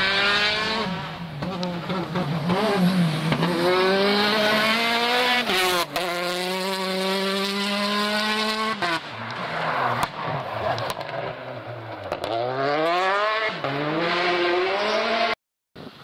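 Rally car engine at full throttle on a gravel stage, revving up in several long climbs that drop sharply at each gear change and when lifting off. The sound cuts out for a moment near the end.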